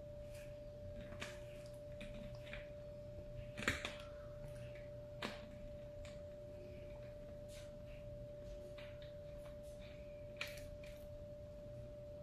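Close-miked chewing and mouth sounds: scattered soft wet clicks, the loudest about three and a half and five seconds in, over a steady faint high tone.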